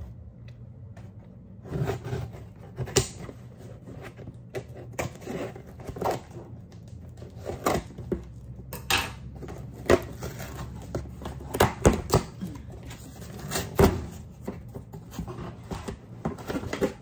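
Cardboard shipping box being cut open with scissors and its flaps pulled open: irregular snips, scrapes and knocks of cardboard.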